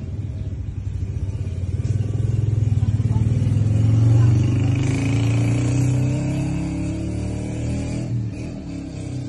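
A motor vehicle's engine running close by, growing louder to about four seconds in and then easing off.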